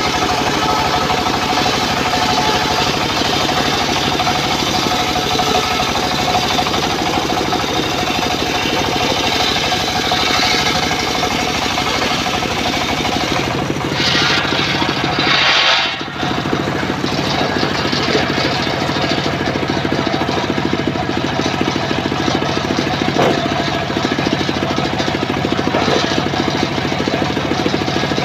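Homemade circular sawmill (serkel rakitan) running steadily, its blade ripping a log lengthwise into rafter timber: a constant motor drone under a dense grinding cut. The cutting noise sharpens for a couple of seconds just before a momentary break about halfway through.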